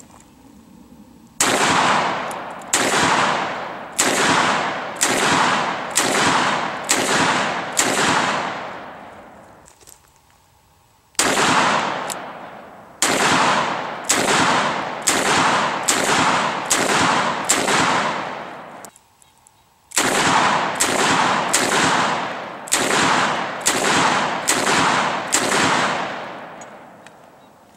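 Taurus Model 66 .357 Magnum revolver being fired in three strings of about seven shots each, emptying its seven-round cylinder each time, at a bit under a second between shots. Each shot is sharp and fades off in a short echo.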